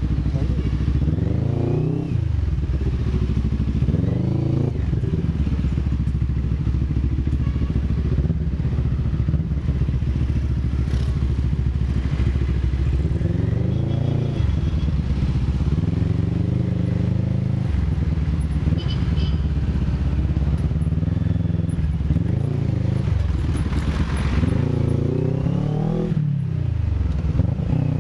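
Motorcycle engine running while riding, its revs rising and falling again and again as it speeds up and eases off.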